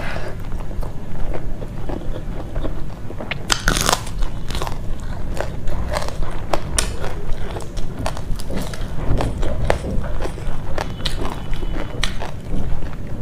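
Close-miked chewing of rice and crisp fried fish: wet mouth clicks with repeated crunching, the loudest crunch a little under four seconds in.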